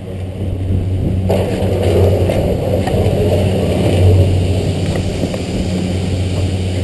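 Skis sliding and scraping over packed snow as the skier glides off a chairlift unloading ramp, with wind on a helmet-mounted camera; the sliding noise starts about a second in. A steady low hum runs underneath.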